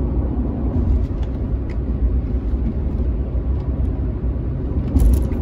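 Steady low rumble of a truck's cab, engine and road noise, with a few faint clicks and a brief hiss near the end.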